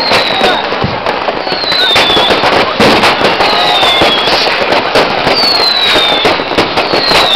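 New Year's fireworks and firecrackers going off all around in rapid, overlapping bangs and crackles, with a high falling whistle repeating about every two seconds.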